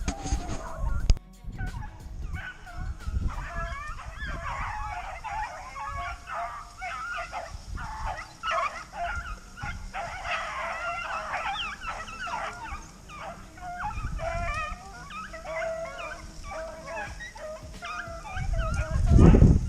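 A pack of rabbit-hunting dogs giving voice on a trail: many overlapping yelps, barks and bays, thickest from about three seconds in. A heavy low thump on the microphone comes near the end.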